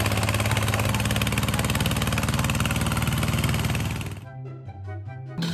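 A machine's motor running steadily with a fast, even rattle, which stops abruptly about four seconds in. Quiet music follows.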